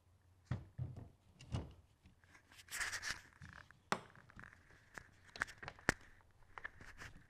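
Handling knocks and clicks as a downrigger is moved and seated in its mount on a plastic kayak: a few dull thumps, a short scrape, then several sharp clicks.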